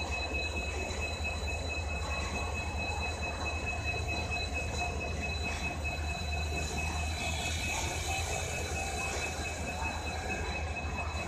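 Diesel locomotive of a passenger train running with a steady low rumble, and a steady high-pitched whine over it.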